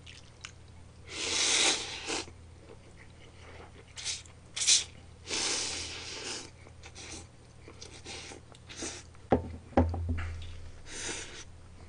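Buckwheat soba noodles dipped in tsuyu being slurped, in two long noisy pulls, about a second in and again around five seconds in. Shorter sucking and chewing sounds come between them, and a couple of low knocks come near the end.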